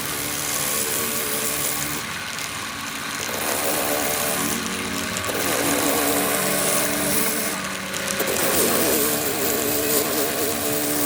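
A motor or engine running steadily, its pitch wavering up and down.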